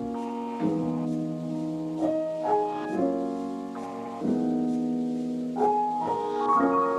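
Background music: a piano playing a slow, calm melody of held notes.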